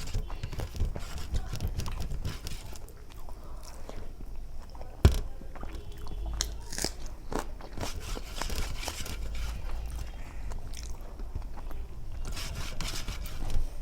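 Close-miked eating sounds: a person chewing and biting food, with irregular wet clicks and crunches. A single sharp click about five seconds in is the loudest moment.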